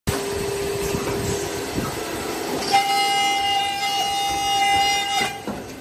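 CNC cutting machine running without speech: a steady hum, then from about three seconds in a louder, higher steady whine that stops a little before the end.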